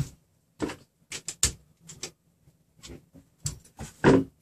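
Hands adjusting the nuts on a RepRap Prusa Mendel's threaded-rod frame: a string of irregular small clicks and knocks, the loudest about four seconds in.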